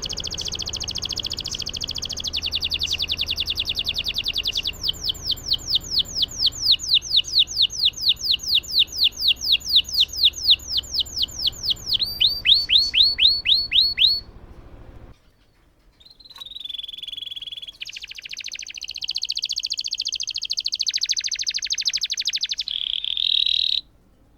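Domestic canary singing long rolled trills: a fast buzzing trill, then a slower run of repeated sweeping notes, then quicker notes. After a short break about fifteen seconds in, more sustained trills follow. This is the kind of long-rolling song played to coax a silent canary into singing.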